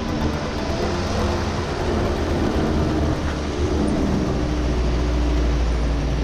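Street go-kart engines running as the karts drive along a city road, a steady low rumble with a pitched engine note that shifts now and then.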